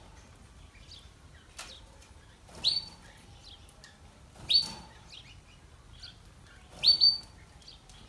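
Domestic canaries giving short, sharp chirped call notes, one every couple of seconds, with quiet room tone in between.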